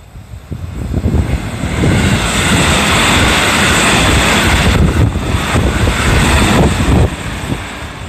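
JR Central 313 series electric train passing close by on the rails. The noise builds over the first two seconds, stays loud for about five seconds, then drops off as the train moves away. Wind buffets the microphone.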